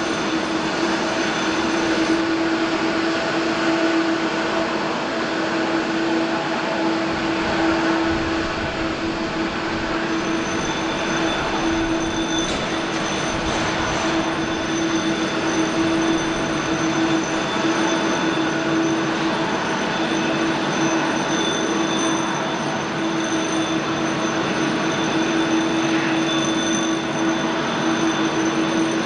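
Boeing 767-300ER's jet engines running at taxi power: a loud, steady whine with a low hum over engine noise.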